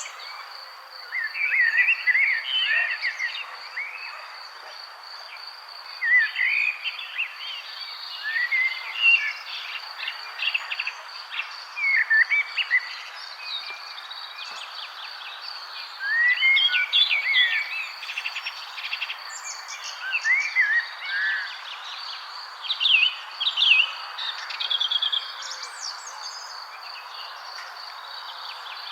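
Songbirds chirping and singing in short bursts of warbling notes every second or two, over a steady high pulsing insect trill and a soft hiss of background noise.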